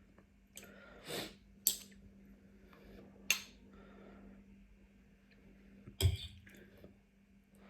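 Close-miked eating at a bowl: a breath-like rush about a second in, two sharp clinks a little under two and a bit over three seconds in, and a heavier knock with a dull thud about six seconds in.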